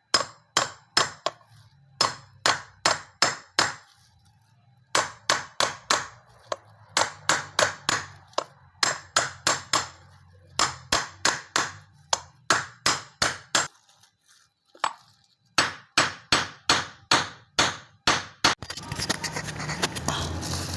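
Repeated metal-on-metal hammer blows on a 30 mm socket, used as a drift to drive a new bearing into its seat in place of a press. About three or four strikes a second, in runs broken by short pauses. Near the end a steady rushing noise takes over.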